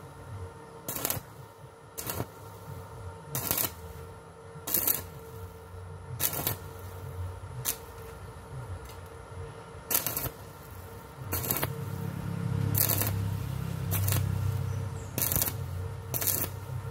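Portable 200-amp stick welder's arc crackling in short bursts, about one a second, as the electrode is struck and tack welds are laid on steel pipe; past the middle the arc holds for a few seconds in a longer, louder sizzle. A steady hum runs underneath.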